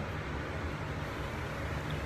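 Steady low machine hum, an even drone with no sudden sounds.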